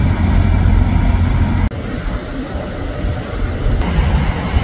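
Steady low rumble of fire trucks' engines and pumps running alongside a large fuel fire, in short clips that cut abruptly twice; the last part carries more hiss.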